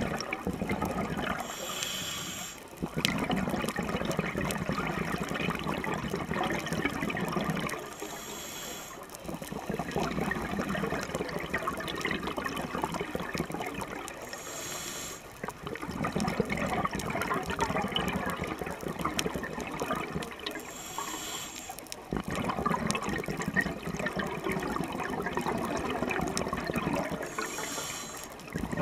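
Scuba regulator breathing underwater. A short high hiss of inhalation comes about every six seconds, each followed by a long rush of exhaled bubbles, five breaths in all.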